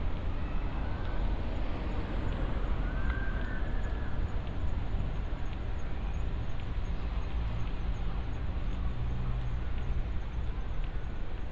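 Busy outdoor city ambience: a steady low rumble of traffic and crowd noise with faint voices and light footsteps.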